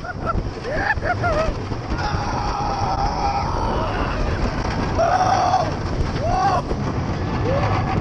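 Rushing wind buffeting a camera microphone on a moving roller coaster, with riders' screams and whoops rising and falling several times.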